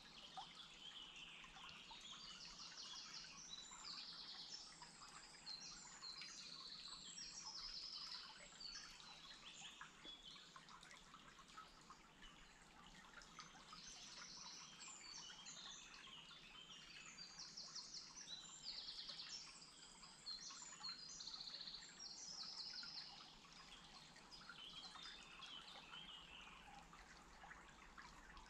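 Faint woodland birdsong: songbirds singing short, repeated trilling phrases in two bouts, over a faint steady hiss.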